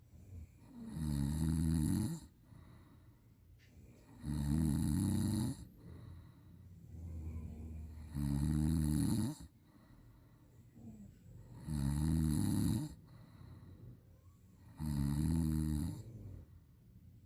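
A sleeping person snoring loudly: five snores, each about a second long and about three and a half seconds apart, with a quieter breath between them.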